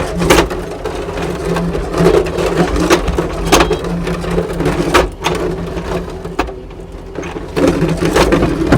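Kubota SSV65 skid steer at work: the engine runs steadily under repeated clanks and knocks.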